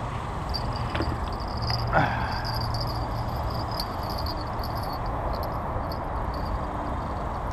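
Insects chirring in a steady high band over a low, steady outdoor rumble. About two seconds in there is a short falling swish as the fishing rod is cast.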